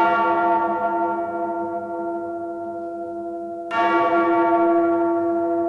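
A deep bell tolling: one stroke rings on and slowly fades, then a second stroke comes nearly four seconds in. It is the opening of a heavy rock music track.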